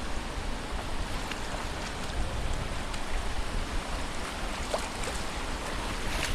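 Steady wash of sea surf on a sandy beach, with wind rumbling on the microphone.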